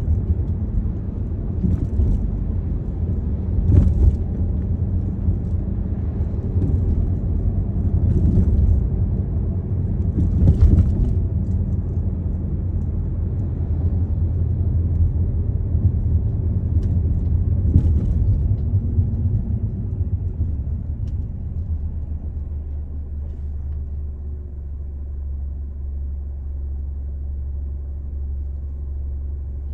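Low road rumble of a car heard from inside the cabin while driving, with a few short clicks and knocks. About three-quarters of the way through, the rumble becomes smoother, steadier and a little quieter.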